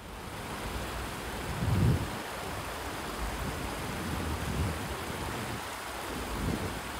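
Shallow stream rushing and splashing over rocks, a steady rush of water. A few low rumbles come through it, the loudest about two seconds in.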